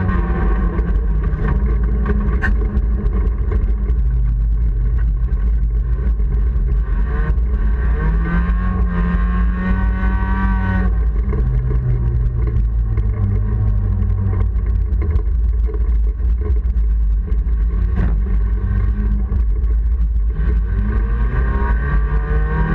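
Honda Civic race car's four-cylinder engine heard from inside the cabin, its revs climbing and falling several times as the car accelerates and lifts, dropping sharply about eleven seconds in and climbing again near the end, over a steady low rumble.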